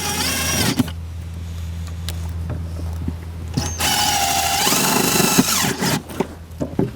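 Cordless drill/driver running twice to fasten the blower motor's bolts: a short run at the start, then a longer run of about two seconds. A steady low hum continues underneath.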